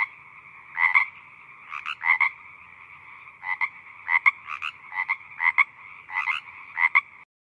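Tree frogs calling in a chorus: a steady trilling background with louder croaks repeating every half-second or so, often in quick pairs. It cuts off abruptly near the end.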